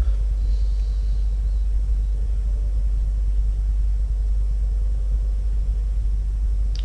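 Steady low background rumble with no clear source, unchanging throughout.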